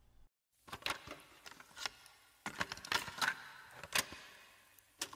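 Irregular clicks and light taps, a few to a second, starting just after a moment of dead silence.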